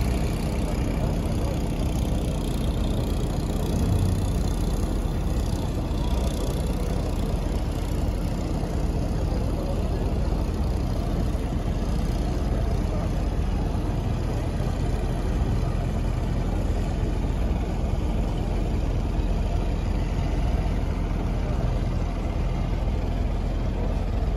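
A large Amazon passenger riverboat's engine running steadily underway: a continuous low drone.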